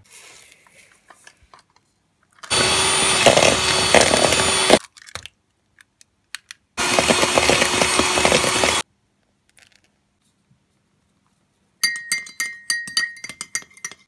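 Electric hand mixer running in two stretches of about two seconds each, its beaters creaming butter and sugar in a bowl. A faint hiss of sugar being poured comes first, and near the end a spoon clinks quickly and repeatedly against a small ceramic cup as something is stirred in it.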